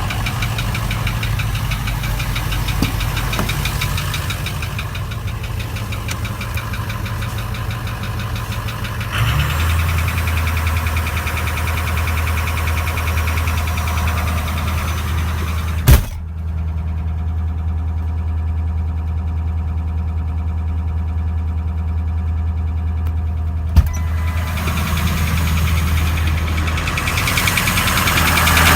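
Ford 6.0 Power Stroke V8 diesel running at idle with a knock, the sign of a bad fuel injector. The engine note shifts about nine seconds in. Sharp clicks come twice, about 16 s in and again near 24 s, and the sound is duller between them.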